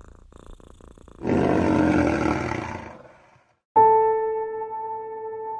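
A low rhythmic rumble gives way to a lion's roar, about two seconds long and fading out. About a second after it dies away, a struck bell rings with a clear tone that slowly decays.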